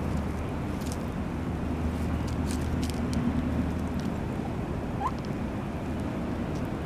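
Hens pecking at sardines on the ground: a few faint, sharp pecking clicks over a steady low rumble, with one brief soft chicken note about five seconds in.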